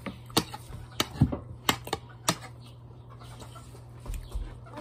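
Eating sounds at the table: a run of sharp clicks and clinks over the first two and a half seconds, with a louder thump about a second in, then quieter.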